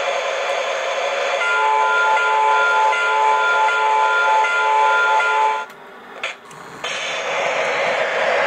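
Lionel O-gauge locomotive onboard sound system: a steady steam hiss, then a whistle chord of several tones, one of them pulsing, sounding for about four seconds. The sound then drops out suddenly for about a second with a single click, and the hiss comes back as the locomotive starts to pull away.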